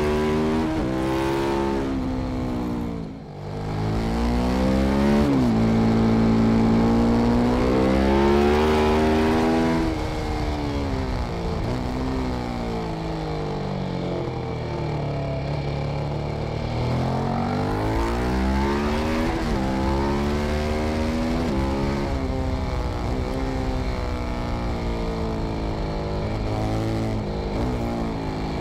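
KTM 1190 Adventure's V-twin with aftermarket Arrow exhaust headers, under hard acceleration and deceleration on track. The revs climb and fall again and again through the gears, with a brief sharp dip in sound about three seconds in, over steady wind and tyre rush.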